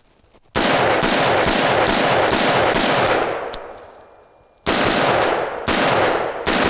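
AR-15-style carbine fired in rapid shots, about two to three a second, each followed by a long echo. A string of about seven shots begins half a second in, then after a pause of about a second and a half a second string follows.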